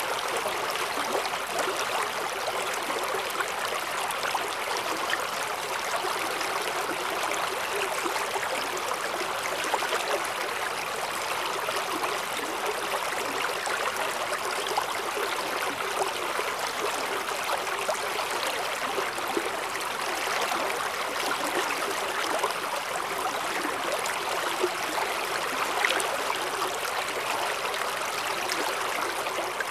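Mountain stream rushing steadily over rocks in a valley, an even wash of water noise with small splashes.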